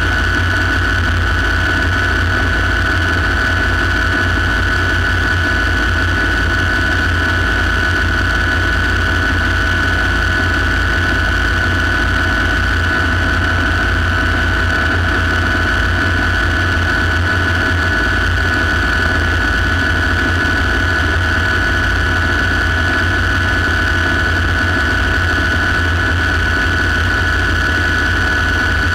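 Light turbine helicopter in cruising flight, heard from inside the cockpit: a steady high turbine whine over a low, unbroken drone from the engine and rotor.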